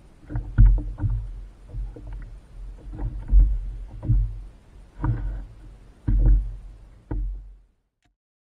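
A kayak on the water: irregular sloshes and knocks against the hull, about one a second. The sound cuts off suddenly near the end.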